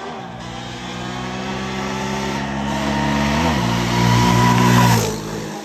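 Two sport quads racing flat out toward the listener, a Yamaha Banshee 350 two-stroke twin and a Yamaha Raptor 700 four-stroke single, their engines at high revs. The engines grow steadily louder, with a brief dip in pitch about three and a half seconds in.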